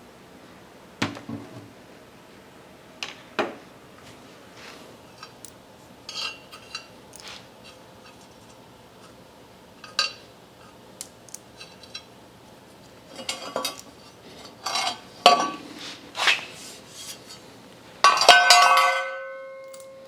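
Scattered metallic clinks and taps of hand tools against steel hydraulic fittings. Near the end comes a loud clank of metal on metal that rings briefly.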